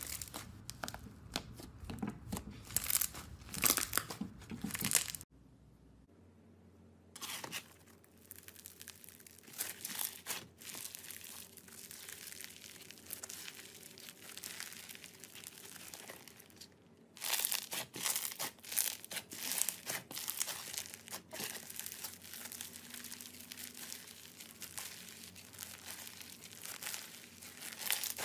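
Hands squeezing, stretching and pressing slime, giving quick runs of crackles, pops and crunches; the slimes include a textured rainbow slime and one packed with small beads. There is a short quiet gap about five seconds in, and the crackling is densest near the end.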